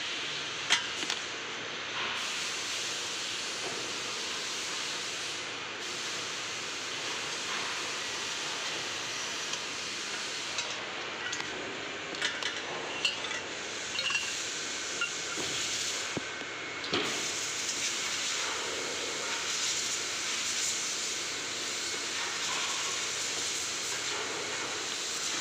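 Cordless drill work on a metal coffee-table frame: scattered metal clinks and knocks over a steady hiss, the loudest knock about a second in.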